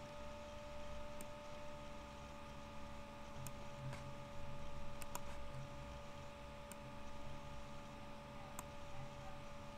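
A computer mouse clicking about six times, two of them close together in the middle, over a steady electrical hum with a faint whine.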